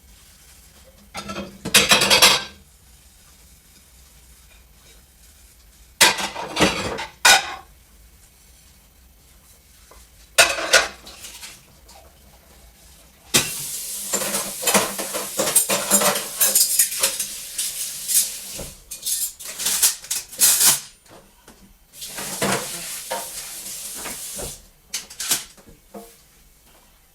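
Dishes and cutlery clattering in short bursts, then two longer stretches of steady hiss with clinks and knocks over it, the first lasting about seven seconds.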